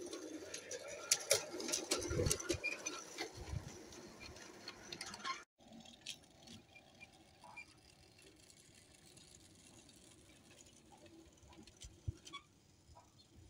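Large-scale model freight train behind an AristoCraft Critter locomotive running on garden railway track: dense clicking and rattling of wheels over the rails, with two dull thumps about two and three seconds in. The sound drops out briefly about five and a half seconds in, then goes on as sparser, quieter ticking.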